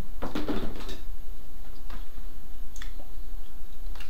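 Drink pouring from a plastic jug into a cup, ending within the first second. Then a few light, separate knocks and clinks of the jug and cups on the table, over a steady low hum.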